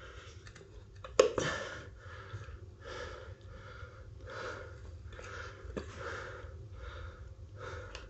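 Screwdriver clicking and scraping against the scooter wheel as the solid rubber tyre is levered onto the rim, with a sharp click about a second in and a smaller one near six seconds. Under it, a person breathing hard in a steady rhythm from the strenuous work.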